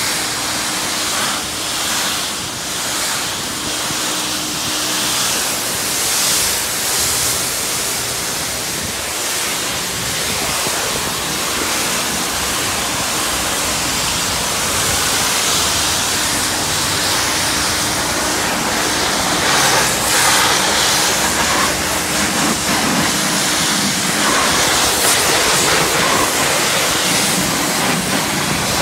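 High-pressure washer wand spraying a steady jet onto a car's bodywork and the wet concrete, a continuous hiss of water with a faint low hum underneath.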